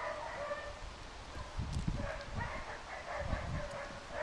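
A dog whining in short high-pitched cries at intervals, with a few low thumps underneath.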